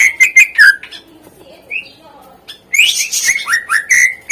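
Cucak ijo (green leafbird) singing an 'isian' song studded with borrowed notes: quick sharp chips and short downward-slurred whistles in two phrases, the second starting about two and a half seconds in.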